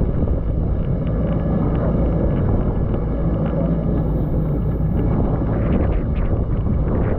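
Jet ski engine running steadily, with wind rushing over the microphone.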